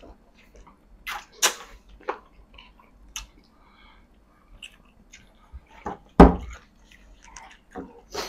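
People speed-eating a nasi Padang meal: chewing and mouth noises with scattered small clicks. One loud thump comes about six seconds in.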